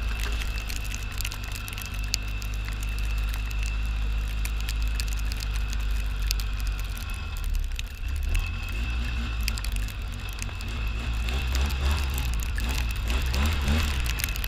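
Snowmobile engine running steadily while riding a snowy trail, with a steady high whine over it and scattered light clicks. The engine note climbs near the end as it speeds up.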